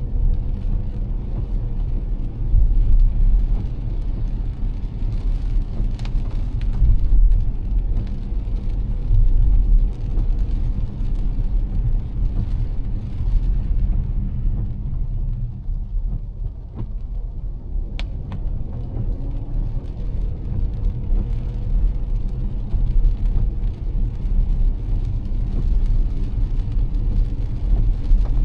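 A car driving on rain-soaked roads, heard from inside: a steady low rumble of tyres and engine with the hiss of wet road and rain, and a few sharp ticks.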